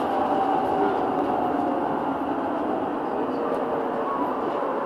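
Steady running noise of a Munich R2.2 low-floor tram travelling along street track, heard from inside the car, with a faint wavering whine from the drive.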